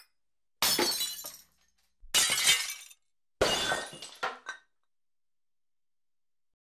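Glass-shattering sound effect: three separate crashes about a second and a half apart, each followed by a few smaller clinks as it dies away.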